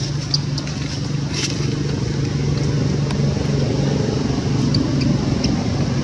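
Steady engine hum running at an even pitch, with a few faint ticks over it.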